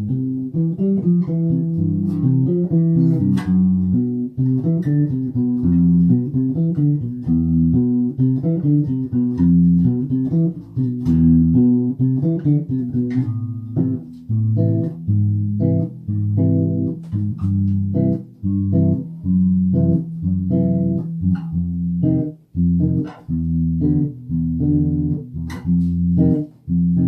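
Instrumental break of a blues song: guitar playing a run of plucked notes over a bass guitar line, with no vocals.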